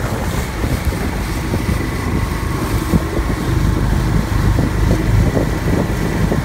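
Small wooden boat's engine running steadily under way, with wind rumbling on the microphone.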